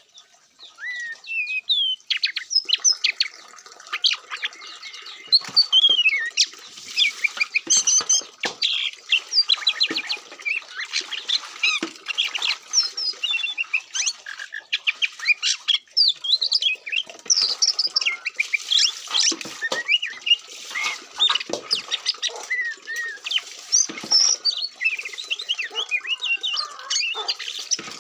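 Songbirds singing: a dense, continuous chatter of quick whistles, trills and harsh squawky notes that builds up over the first two seconds or so.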